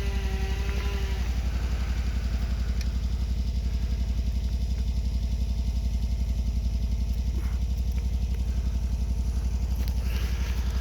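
An engine idling steadily, with an even, fast low pulse that does not change, and a couple of faint clicks.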